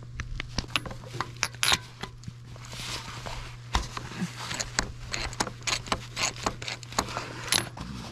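Socket wrench clicking and metal tools clinking as the spark plugs are worked on in an old Allis-Chalmers tractor engine: a run of sharp, irregular clicks over a steady low hum.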